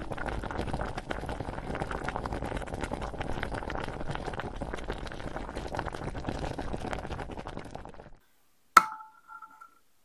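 Water boiling hard with tangerine segments in a pot: a dense bubbling crackle that cuts off suddenly about eight seconds in. Shortly after comes one sharp clink with a brief ring.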